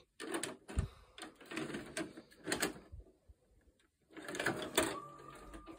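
VHS cassette pushed into a combination DVD/VHS recorder, its tape-loading mechanism drawing it in with a run of clicks and clunks, then a faint steady whine near the end as the machine takes up the tape.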